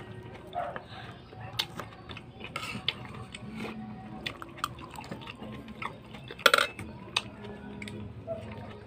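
Eating rice by hand from a plate: scattered small clicks and clinks of fingers and dishes on a table, with one louder knock about six and a half seconds in.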